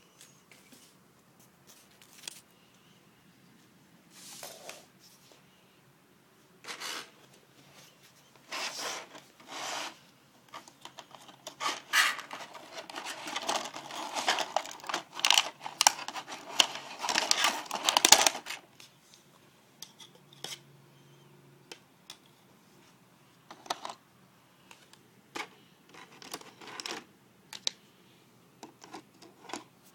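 Plastic toy airport pieces and packaging being handled: scattered clicks, rubs and rustles, busiest and loudest in the middle stretch.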